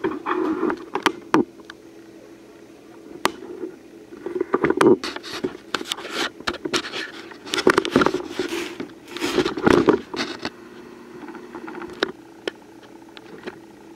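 Honeybee colony humming steadily under the scrapes and knocks of a glass sugar jar and hive woodwork being handled, busiest from about four to ten seconds in.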